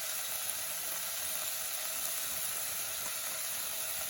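Garlic and onion sizzling in oil in a pan: a steady, even hiss.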